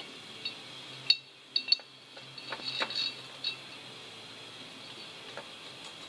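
Sharp metallic clinks and taps from lapping the intake valve of a Chaise Vega stationary engine into its seat in the cast-iron cylinder head, turned with a screwdriver. A few single clinks come first, then a quick cluster a couple of seconds in, and it goes quieter after that.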